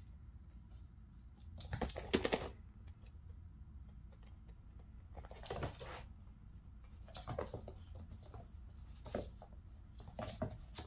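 Kittens' paws and claws scrabbling and skidding on a hardwood floor and foam mats as they chase and pounce, in about five short bursts of clicks and scuffs. The first burst, about two seconds in, is the loudest.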